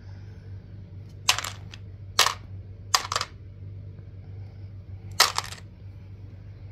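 Small plastic dice dropped one handful at a time into a box full of dice, clattering four times, each drop a quick rattle of several clicks.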